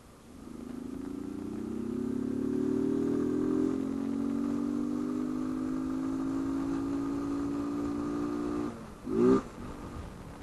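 Honda CG 160 Fan single-cylinder four-stroke engine, run with its intake hose (mangote) removed. The revs climb over the first few seconds and are held steady, then drop about nine seconds in with a short, loud burst of engine sound.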